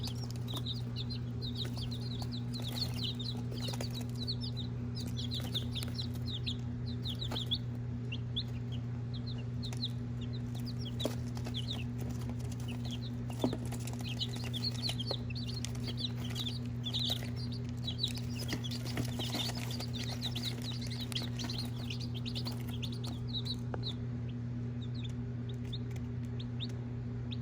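A brood of young chicks peeping in a box: many short, high chirps overlapping continuously, over a steady low hum.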